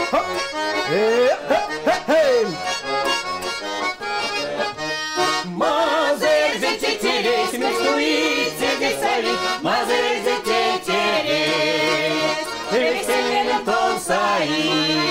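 Accordion playing a folk tune, an instrumental passage between the sung verses of the song.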